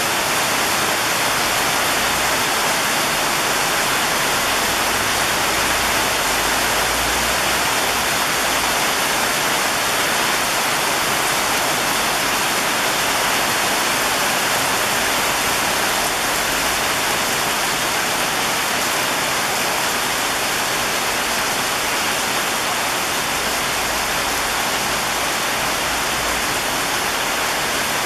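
Heavy rain falling steadily on the rooftops, a dense even hiss.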